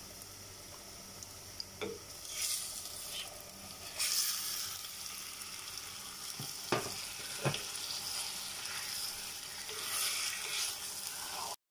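Raw chicken pieces sizzling as they fry in hot oil in a clay handi, being stirred with a wooden spoon. The sizzle is steady and grows louder in a few surges, about four seconds in the biggest, with a few sharp knocks as the spoon hits the pot.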